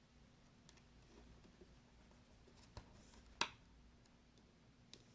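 A few faint, sharp clicks of small parts and tools being handled while reassembling a phone, the loudest about three and a half seconds in, over near-silent room tone.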